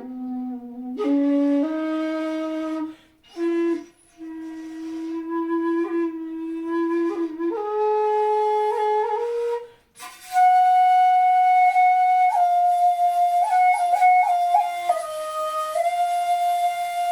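A 2.2 jinashi shakuhachi (bamboo end-blown flute pitched in B-flat) playing a slow phrase of long held notes, low in its range at first, then louder in the upper register from about ten seconds in, with small bends and grace notes between pitches. It stops at the end of the phrase.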